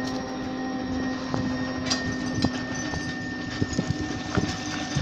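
Sawmill machinery running with a steady whine, with scattered short knocks and clanks over it.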